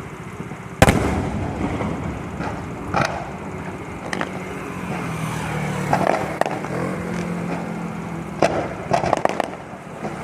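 Fireworks going off: a loud bang about a second in, then scattered bangs and crackles, with a quick run of several bangs near the end.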